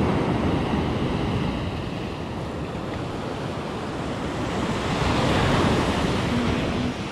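Ocean surf breaking and washing up a sandy beach, with wind on the microphone; the wash swells louder about five seconds in.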